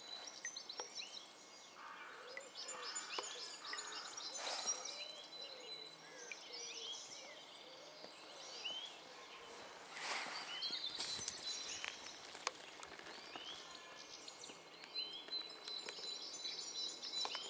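Several birds singing, with short chirped notes repeating about once a second and a thin high, steady note near the start and again near the end. A couple of brief soft swishes break in, about four seconds in and again about ten seconds in.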